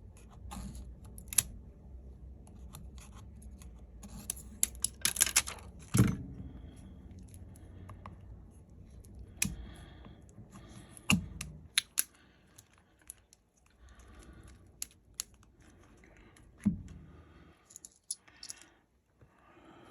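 Hands working on a smartphone during reassembly, handling the battery adhesive sticker and small parts: irregular small clicks and scratchy rustling, a louder scrape about five seconds in, and a few sharp taps.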